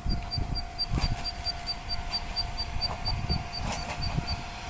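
Wind buffeting the microphone in uneven gusts, with a high, even run of short chirps, about five a second, that stops shortly before the end.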